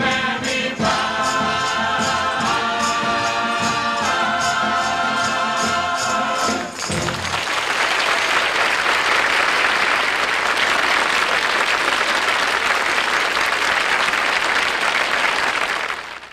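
A chorus and band finish a song on long held notes with a steady beat. About seven seconds in, studio audience applause takes over and fades out at the end.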